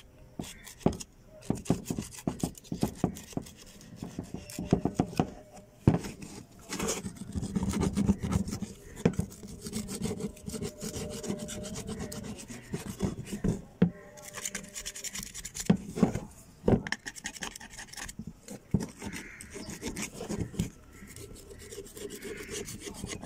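Caked dried mud and rust being scraped and rubbed off a dug-up revolver with a flat metal scraper and sandpaper. Short, irregular rasping strokes with frequent sharp scratches and clicks.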